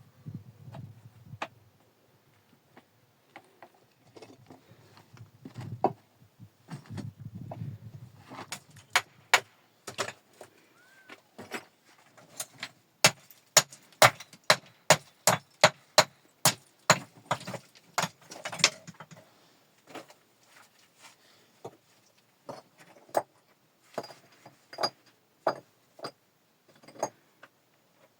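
Repeated sharp knocks and clacks of hard objects striking one another, scattered at first, then a quicker run of about two strikes a second through the middle, thinning out again near the end. A low rumble of handling and shifting comes under the strikes in the first couple of seconds and again around six to nine seconds in.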